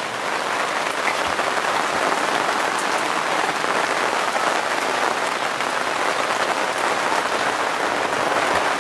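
Steady rain falling, a loud, even hiss.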